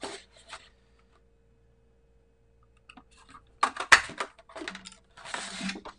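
Sheet of paper rustling and crinkling as it is handled and fed into a handheld craft circle punch: a brief rustle at the start, then quiet, then a spell of paper handling about three and a half seconds in with a sharp click near four seconds.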